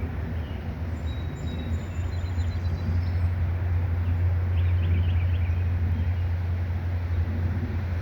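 A steady low rumble, with faint bird chirps about a second in and a few more around the middle.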